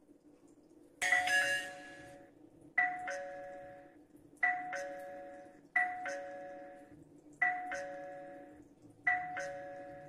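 WUUK wireless doorbell chime ringing a two-note ding-dong six times, a higher note then a lower one, each ringing out, about every one and a half to two seconds as the doorbell's button is pressed. The ringing is the feedback showing the doorbell is now connected to the chime.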